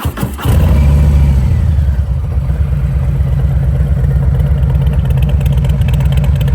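Harley-Davidson Street Bob 114's Milwaukee-Eight 114 V-twin starting through a Rinehart exhaust. It cranks briefly and catches about half a second in. It settles by about two seconds in into a steady, pulsing idle.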